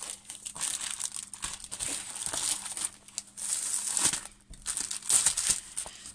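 Clear plastic wrapping crinkling as a rolled diamond painting canvas is handled, in irregular spells of rustling with brief pauses.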